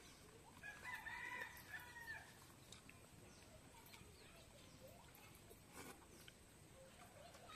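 A rooster crowing once, faintly, about a second in.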